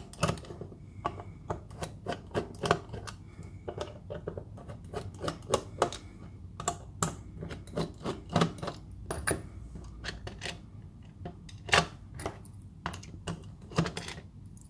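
Irregular small clicks and taps of a small screwdriver and fingers working on an Analog Discovery's case while its corner screws are undone to open it.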